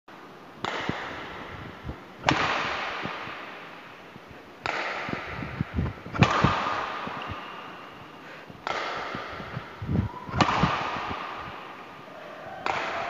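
Badminton racket strokes on a shuttlecock, slowed down in slow-motion playback: about seven sharp thwacks roughly every two seconds, each trailing off in a long drawn-out ring, as shuttles are fed and hit with a wrist-flick smash.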